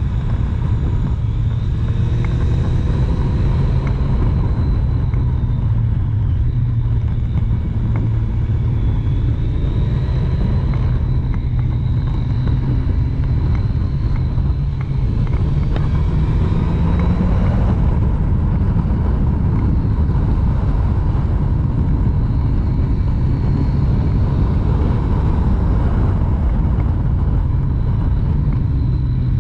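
Motorcycle ride heard from the rider: a heavy, steady wind rush on the microphone over the Triumph Street Triple's three-cylinder engine running under way. The engine pitch rises once about 17 seconds in as the revs climb.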